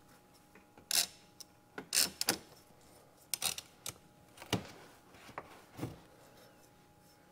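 Hand tool working the upper radiator hose clamp: irregular sharp clicks and scrapes, about six over several seconds.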